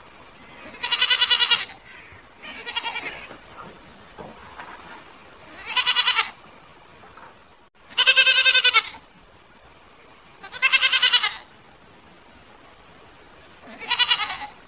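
Goats bleating: six loud, quavering bleats a couple of seconds apart, each about a second long, the second one shorter and fainter.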